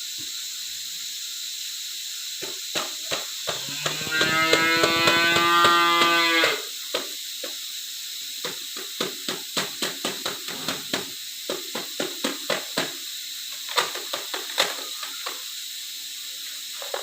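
A cow moos once, one long call of nearly three seconds, over a steady hiss. Many irregular sharp knocks and clicks come before and after it.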